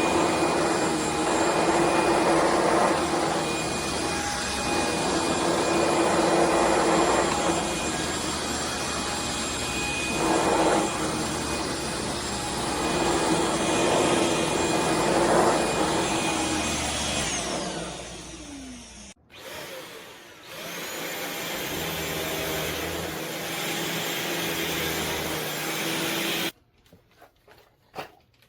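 Shark PowerDetect corded stick vacuum running, its motor swelling and easing as it is pushed. Near the two-thirds mark it winds down and stops, restarts with a rising whine, and is switched off abruptly a few seconds before the end.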